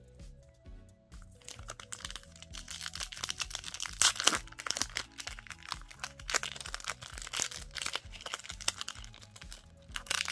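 Foil wrapper of a Pokémon TCG booster pack crinkling and crackling as it is torn open by hand and the cards pulled out, loudest about four seconds in, over background music.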